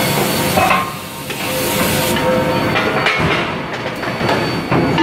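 Forge-shop machinery noise: a steady hum and hiss with a few scattered metal clanks.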